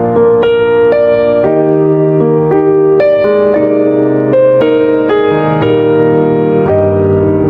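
Instrumental keyboard music: slow, held chords that change every half second to a second.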